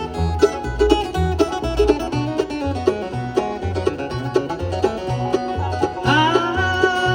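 Bluegrass band playing an instrumental passage: quick picked banjo notes over a steady walking bass line, with a long note sliding up and held about six seconds in.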